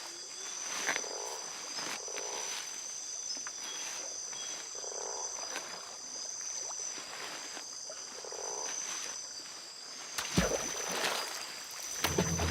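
Tropical night chorus: steady high insect trilling, with frog croaks repeating every second or two. A low thump sounds about ten seconds in.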